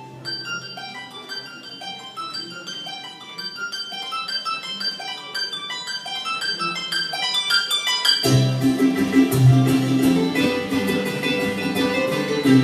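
Harp playing a solo passage of single plucked notes. About eight seconds in, the band comes in, louder, with strummed strings and upright bass.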